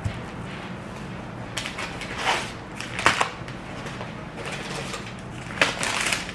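Paper wrapping rustling and crinkling in a few short bursts as paper-wrapped packages are handled on a countertop, with a light knock about three seconds in.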